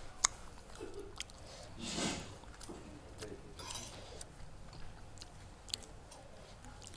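Eating sounds at a meal of papeda and fish soup: a few sharp clinks of metal spoon and fork against bowls, the loudest about a quarter second in, over soft chewing.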